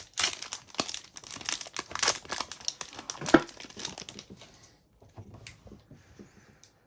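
Wrapper of a 2023-24 Upper Deck hockey card pack crinkling as it is torn open, a dense crackle for about four and a half seconds, then fainter scattered rustles.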